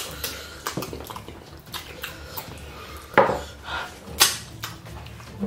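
Eating by hand: wet mouth sounds of chewing and slurping goat meat and ogbono soup, with fingers scraping soup off ceramic plates. Scattered short clicks and smacks, the loudest about three and about four seconds in.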